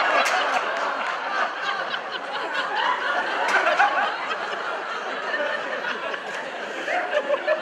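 Audience laughing and chattering, with many overlapping voices and a few light knocks.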